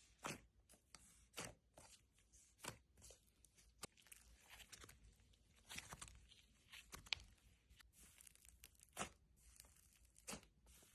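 Slime being handled: faint, scattered crackling clicks, roughly one a second.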